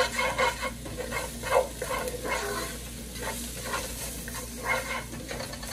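Chopped onion sautéing in oil in a nonstick pot, sizzling while a spoon scrapes and stirs through it in repeated strokes, about two a second.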